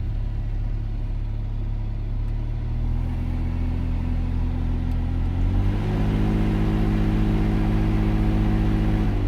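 2008 Volvo XC90's air conditioning running with a loud, low, steady hum that steps up in pitch and loudness as the blower fan is turned up, once about three seconds in and again about five and a half seconds in. The owner is unsure whether a failing AC compressor or the blower is behind it.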